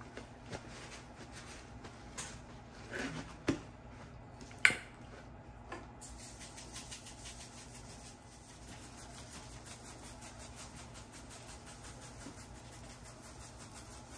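Faint kitchen handling of a raw chicken: a few light knocks and one sharp click about four and a half seconds in, then a faint, even, rapid ticking of seasoning being shaken from a shaker onto the bird.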